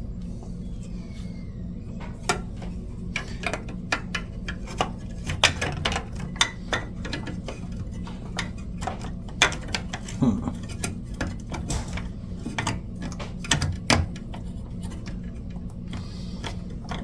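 Hard plastic pinball part being handled and test-fitted into the playfield: irregular clicks and taps of plastic against the playfield parts, over a steady low hum.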